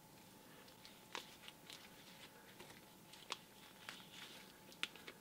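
Faint handling noise of masking tape being pressed and smoothed onto a small die-cast car body with gloved fingers: a soft crinkle and a few light clicks scattered through.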